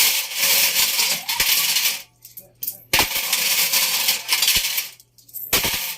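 Loose metal objects clattering and jangling inside an Electrolux washing machine's tumbling drum, in three long bursts with short pauses between them.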